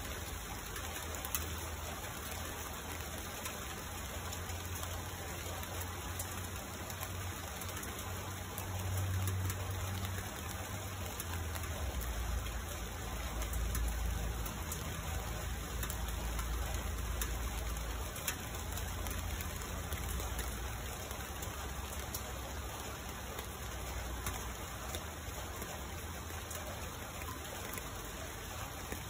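Steady rain falling on tree leaves and a hard ledge, with many fine drop ticks over an even hiss. A low rumble swells for several seconds in the middle.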